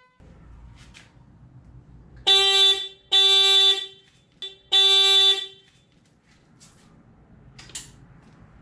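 Motorcycle horn honked three times in short steady single-tone blasts, the first two close together and the third after a short gap.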